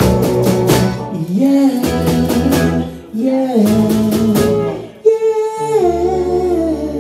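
Live band playing a song: strummed acoustic guitar with bass and drums under sung vocal lines. Near the end the music thins to a held chord with a long, slowly falling sung note as the volume eases off.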